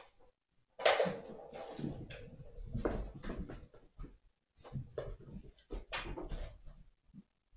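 Five-week-old kittens playing: scattered knocks, scuffles and scratching, with drawn-out kitten mewing about a second in and again near the end.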